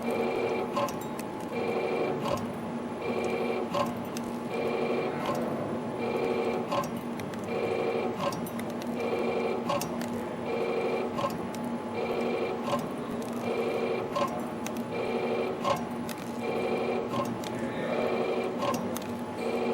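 CNC flat-wire ring forming machine making tiny wave springs, running in a steady cycle about once every one and a half seconds. Each cycle is a short whir as the wire is fed and coiled, then a sharp click as the ring is cut off, over a constant hum.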